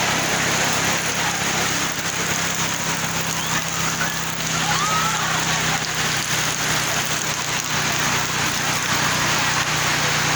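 Heavy rain pouring steadily, an even hiss with a steady low hum underneath.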